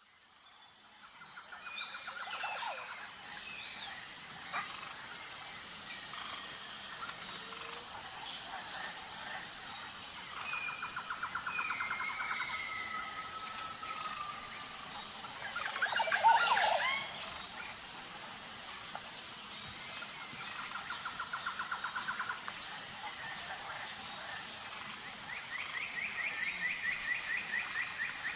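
Tropical forest ambience: a steady high insect drone with birds calling over it, in short trills, gliding whistles and one louder, busier burst of calls about sixteen seconds in. The sound fades in at the start.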